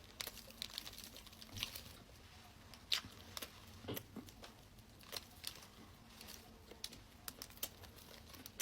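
Faint, irregular clicks and light crinkles from eating and handling bread, several scattered short ticks a second or so apart.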